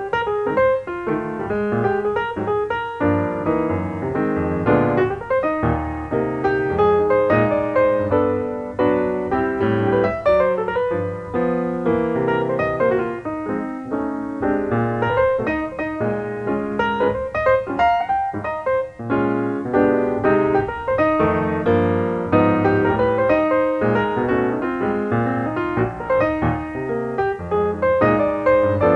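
Background piano music, a continuous run of quick notes.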